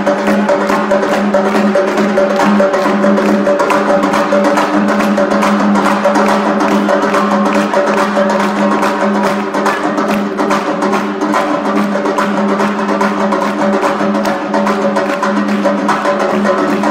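Armenian folk ensemble music: several dhol drums beat a fast, dense rhythm over a steady low drone, with melody from the wind players (duduks), accordion and qanun.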